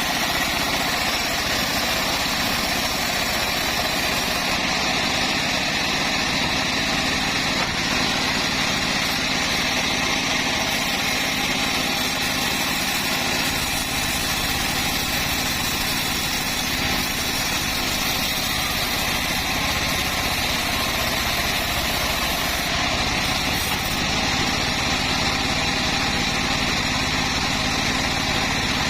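Engine-driven homemade bandsaw mill running steadily at an even pitch and level.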